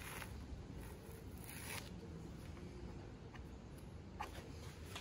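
Blue painter's tape being peeled off a fiberglass boat deck: two short, faint ripping sounds about a second and a half apart, then a small tick near the end.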